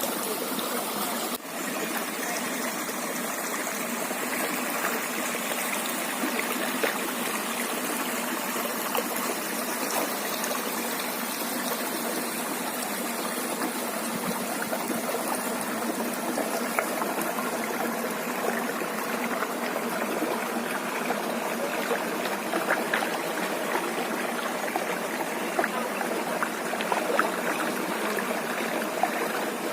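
River water running steadily, with a brief click and dip in level about a second and a half in.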